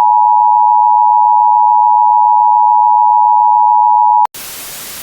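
Emergency Alert System attention signal: a loud, steady two-tone alarm sounding as one held note, which cuts off abruptly about four seconds in. A steady, quieter hiss of static follows. The tone announces the start of an emergency alert message.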